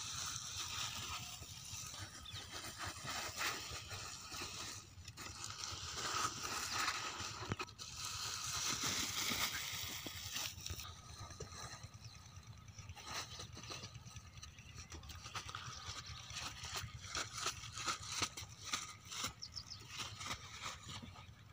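A plastic lay-flat irrigation pipe rustling and scraping over sand as it is unrolled, with many short irregular crackles, over a steady low hum.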